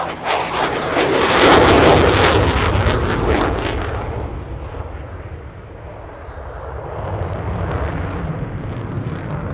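CF-18 Hornet fighter jet passing with its twin engines in afterburner: a loud, crackling jet noise that peaks about two seconds in, fades, then swells again near the end.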